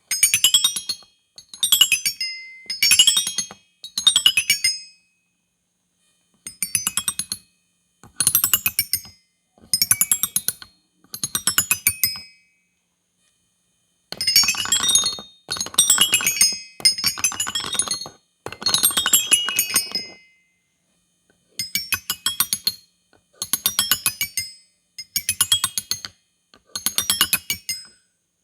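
Bright, tinkling runs of rapid notes from a small musical toy, each sweeping quickly up and back down in pitch, played in about sixteen short bursts grouped in fours with brief pauses between.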